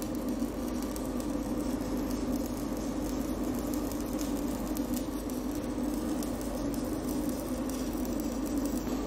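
Stick (electrode) welding arc on a pipe joint, a steady crackle and sizzle that runs on unbroken.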